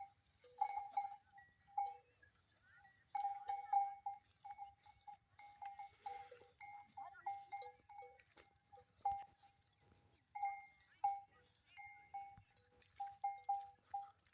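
Livestock bells clanking irregularly, each strike ringing at the same fixed pitch, sometimes several strikes a second, with a few sharp clicks. A brief rough, breathy burst comes about six seconds in.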